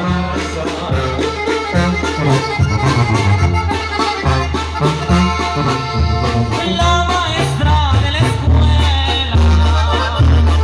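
Oaxacan wind band (banda de viento) playing, a low bass line pulsing on the beat under the melody.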